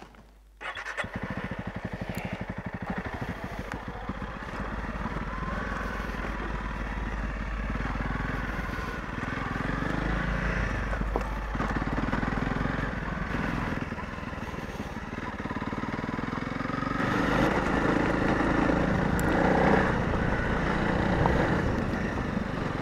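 Honda CRF250 Rally's single-cylinder engine starting up about a second in, then running as the motorcycle rides off over rough dirt and gravel. The engine note rises and falls with the throttle and gets louder in the last few seconds.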